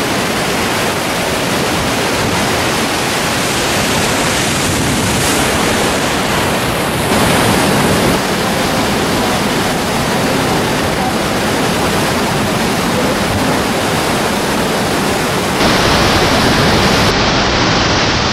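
Waterfall rushing: a steady, loud noise of falling and churning water. It steps up in loudness about seven seconds in and again near the end.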